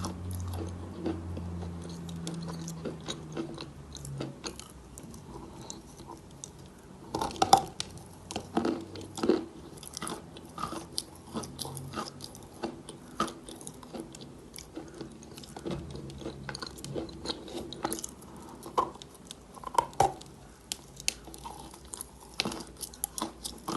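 Chalk being bitten and chewed close to the microphone: irregular sharp crunches and cracks, with a busy run of them about a third of the way in and again near the end.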